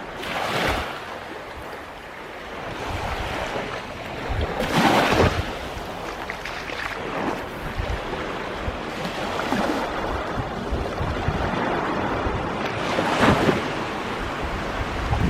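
Gulf surf breaking on the beach, with wind buffeting the microphone. It swells louder three times: about half a second in, around five seconds and around thirteen seconds.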